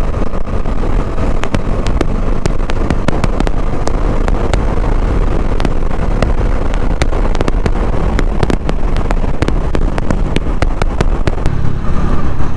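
Bajaj Dominar motorcycle underway on a highway: a steady low rumble of engine and riding noise, peppered with frequent sharp clicks and knocks, with the rumble growing louder near the end.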